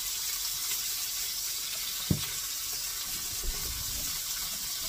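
Hamburger patties sizzling steadily in a skillet, with a single short knock about two seconds in.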